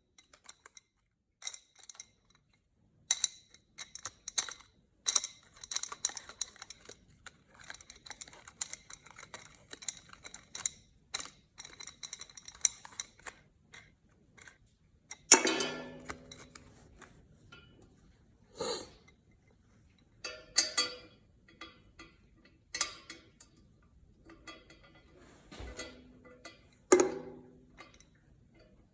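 A wrench clicking rapidly in runs as bolts are tightened on a steel roller stand's legs, with several sharp metal clanks of the parts being handled.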